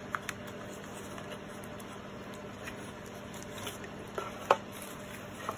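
A few faint clicks and taps from handling a small clear plastic jewelry box and its card packaging, with one sharper click about four and a half seconds in, over a quiet steady room hum.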